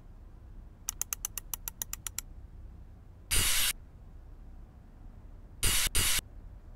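Cartoon sound effects: a quick run of about a dozen clicks, then a short hissing whoosh, and two more whooshes close together near the end.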